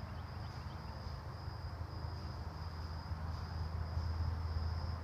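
A steady high-pitched insect trill that pulses slightly, over a low rumble.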